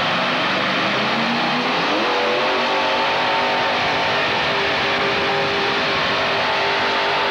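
Modified pulling tractor's engine revving up as it launches under load pulling a weight-transfer sled: the pitch climbs about two seconds in and then holds steady at high revs.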